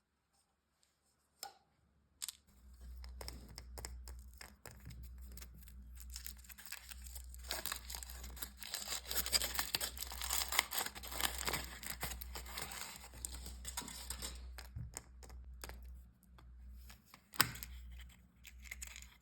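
Candy wrapper being torn open and crinkled by hand: dense crackling and rustling that starts a couple of seconds in and goes on, with one sharp snap near the end.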